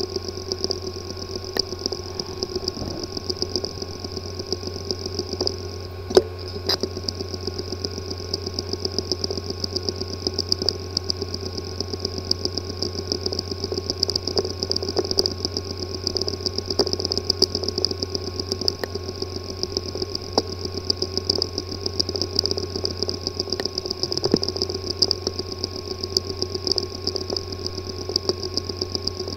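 Physically damaged hard drive running with a steady hum and a fast, continuous clicking buzz, with one sharper click about six seconds in: the sound of a damaged disk assembly.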